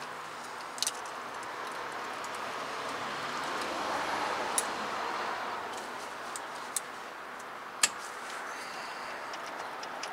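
A handful of sharp metallic clicks as pliers work the parking-brake cable and lever on a rear disc-brake caliper, the loudest about three-quarters of the way through, over a steady background noise that swells a little in the middle.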